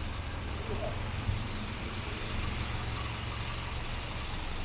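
Road traffic on a rainy city street: a steady low rumble of engines under an even hiss.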